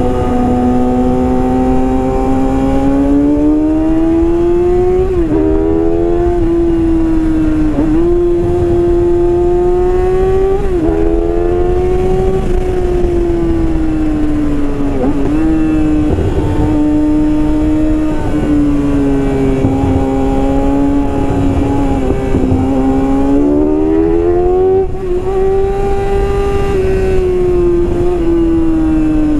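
Yamaha R6's 600 cc inline-four running through a full Yoshimura exhaust system, revved hard on the road. Its pitch climbs and drops sharply at quick gear changes about three times in the first dozen seconds, then holds high with gentle rises and falls, and climbs again near the end.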